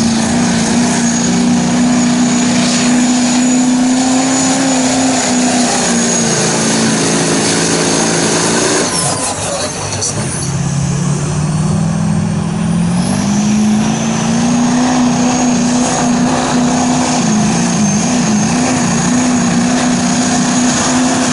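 Chevrolet Silverado pickup's Duramax diesel engine held at full throttle while it drags a weight-transfer pulling sled, a loud, steady engine note with a thin high whine above it. About nine seconds in the note drops briefly, then climbs back up and holds.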